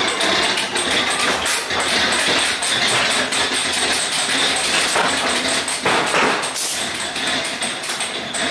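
Ghost-train car clattering and rattling along its track, with a steady stream of loud knocks and clicks.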